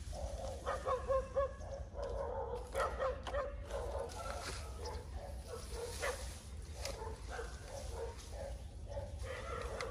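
An animal whining in short, repeated calls throughout.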